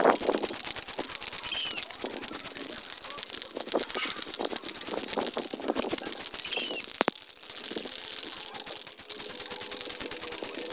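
Aerosol spray paint can hissing as red paint is sprayed on in passes, with a short break about seven seconds in. A bird chirps twice.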